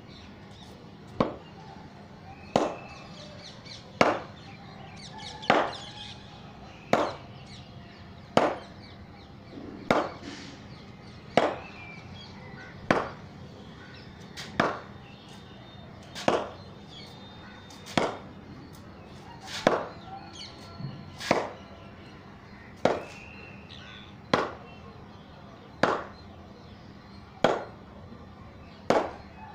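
Wooden cricket bat hitting a ball hung from a cord, a sharp knock about every one and a half seconds, around twenty strikes in a row, as the ball swings back after each hit.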